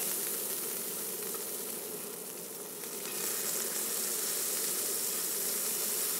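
Oil and pan juices sizzling steadily in a frying pan over the flame after the veal cutlets have been lifted out, easing off a little about two to three seconds in.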